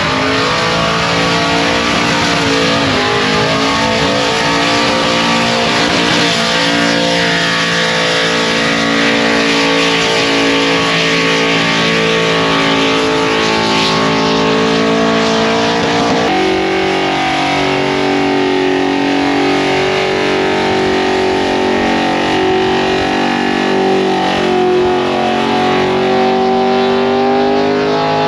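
Car engine held at high revs through a burnout, its pitch shifting in steps, with the hiss of spinning tyres underneath.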